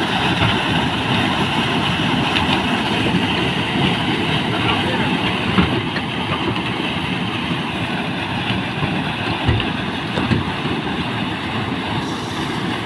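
Floodwater rushing through a breach in an earthen riverbank bund, a loud, steady rush of water. The bund has burst and river water is pouring through the gap.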